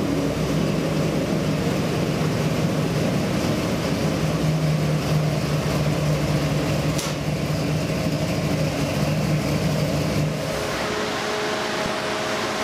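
Ford 418W stroker small-block V8 running steadily at low speed on an engine dyno just after a full-throttle pull. It shuts off about ten seconds in, leaving a steady, quieter hum.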